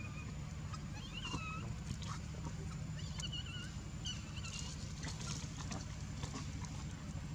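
A few short, wavering high squeaky animal calls over a steady low rumble and a thin, steady high whine.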